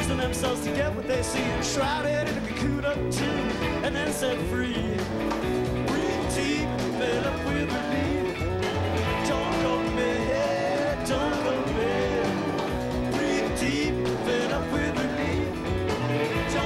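Live rock band playing on stage, with drums keeping a steady beat under electric guitar and fiddle.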